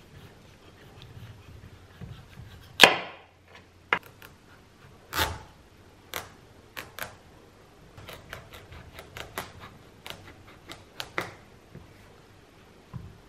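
Chef's knife cutting through a raw butternut squash onto a wooden cutting board: sharp knocks and cracks as the blade is pushed and knocked down through the firm flesh, the loudest about three seconds in. A cluster of smaller clicks and taps follows in the second half.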